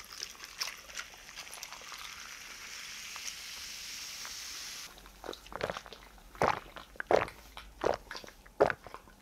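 Cola poured from a plastic bottle over ice in a glass, fizzing with a steady hiss for about five seconds. Then the pour stops and about six loud gulps follow as the cola is drunk.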